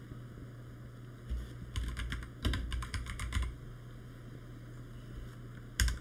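Computer keyboard typing: a quick run of keystrokes lasting about two seconds, then a single louder click near the end.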